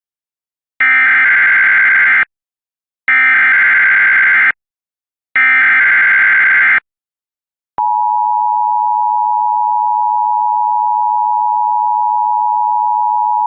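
Emergency alert broadcast opening: three loud buzzy digital SAME header bursts, each about a second and a half long, followed about two-thirds of the way in by a steady alert tone that holds on. This is the NOAA Weather Radio alert signal that comes before a spoken winter storm warning.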